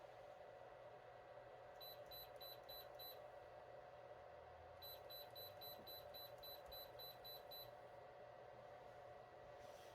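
Faint, quick electronic beeps, about four a second, in two runs: about five, then after a short pause about ten more, over a low steady hum.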